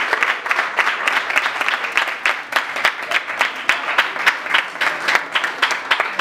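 A roomful of students applauding: many hands clapping at once in a dense, steady patter.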